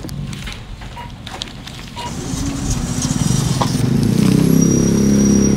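Wind buffeting the phone's microphone, a low rumble that builds from about two seconds in and is loudest near the end. A faint steady high tone comes in late.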